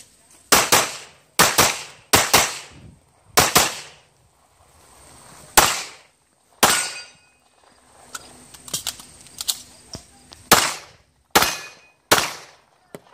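A series of pistol shots fired one after another at an irregular pace, roughly a second apart with a couple of quick pairs, as the shooter moves between targets; fainter cracks come in between.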